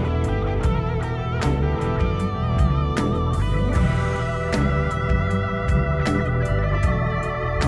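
A live worship band playing an instrumental passage: held organ-like keyboard chords over guitar and bass, with regular drum and cymbal hits marking a slow steady beat.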